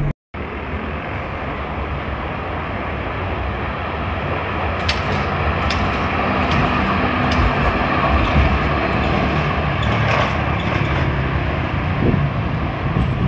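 Street traffic with a tram coming along its rails toward the listener, the noise swelling slowly louder as it nears, with a few sharp clicks about halfway through. It opens with a split-second drop to silence.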